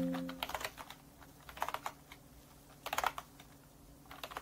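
Computer keyboard being typed on in short bursts of keystrokes with pauses between: a cluster at the start, another just before the second mark, one around three seconds in and a few more near the end.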